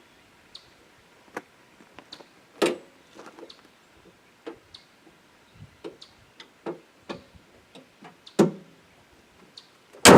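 Scattered light clicks and taps of footsteps and handling, with duller thumps twice. The hood of a 2014 Jeep Compass then shuts with a loud slam near the end, closing on its newly replaced latch.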